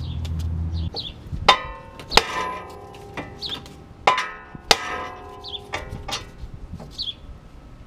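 A heavy hammer striking the steering knuckle arm of a 2007 Acura TSX to shock the tapered tie rod end stud free of the knuckle, metal clanging and ringing. There are four hard blows in two pairs, each pair about two-thirds of a second apart, with lighter knocks between.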